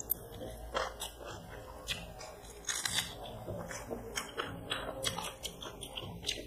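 People eating chicken biryani by hand: quiet chewing with scattered small clicks and smacks.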